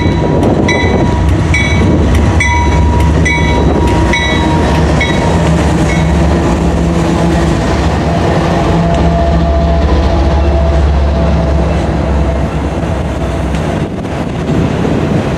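Two GE Evolution-series diesel locomotives (an ES40DC and an ES44AH) passing close, their engines running under load, with a bell ringing about every 0.8 s that stops about 6 s in. After that the autorack freight cars roll by with steady wheel and rail noise.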